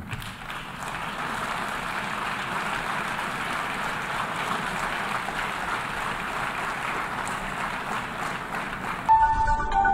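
A hall full of delegates applauding, a steady dense clapping that greets the adoption of a resolution; it cuts off suddenly near the end as music comes in.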